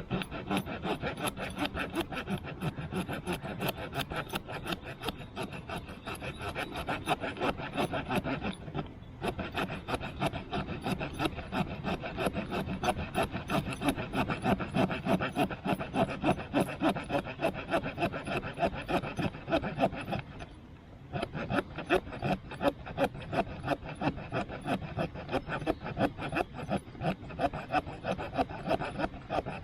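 The wood-saw blade of a Victorinox Ranger Swiss Army knife sawing through a wet stick in quick, steady back-and-forth strokes, pausing briefly twice.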